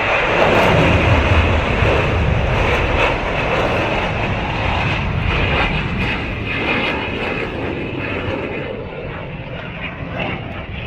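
Jet aircraft flying past, a loud rushing engine roar that peaks about a second or two in and slowly fades away.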